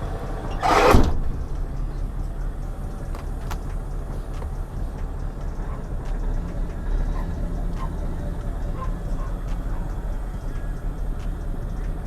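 Heavy truck engine running steadily at a low idle-like drone, with one short, loud burst of hiss about a second in.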